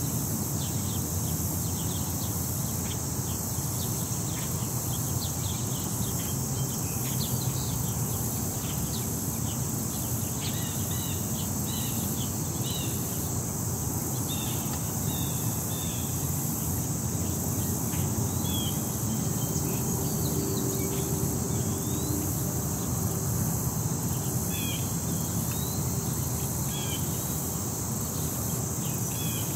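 Summer park soundscape: a steady, high-pitched drone of insects, with short bird chirps scattered through it and a low steady rumble underneath.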